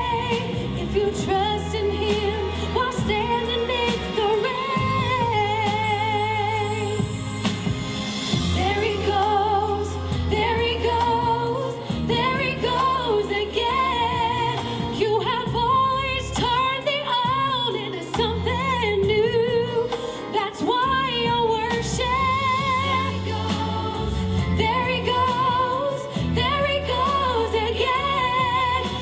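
A female singer sings a Christian song with wavering vibrato on held notes, over an instrumental backing with sustained bass.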